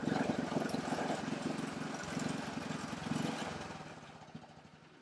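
A small motorbike engine running, then fading away over the last couple of seconds.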